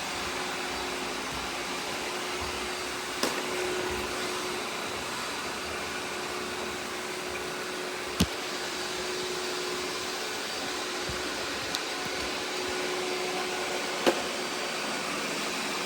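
Several robot vacuum cleaners running together: a steady whir of suction motors and brushes with a faint hum, broken by four sharp knocks.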